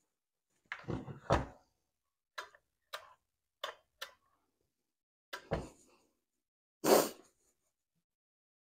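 Clunks and knocks of a partly stripped two-stroke trimmer engine and hand tools being handled on a workbench: two knocks about a second in, four light clicks, then two heavier thumps, the loudest near the end as it is set down.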